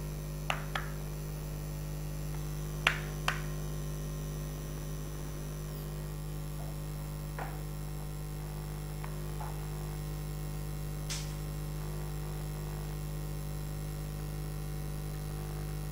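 Steady electrical mains hum, with a handful of short clicks scattered through it, the two loudest about three seconds in.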